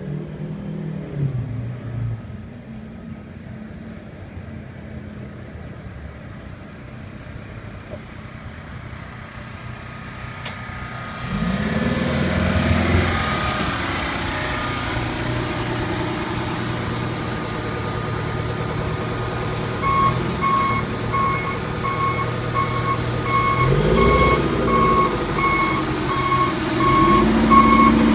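The 1997 Oshkosh T-3000 crash truck's Detroit Diesel engine, faint at first, grows loud about eleven seconds in as the truck pulls up close, its pitch rising as it revs. From about twenty seconds in a reversing alarm beeps steadily about once a second while the truck backs up, over the engine revving again near the end.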